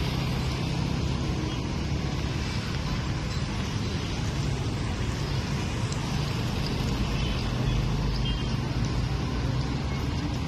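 Steady outdoor street noise with a low engine rumble from road traffic.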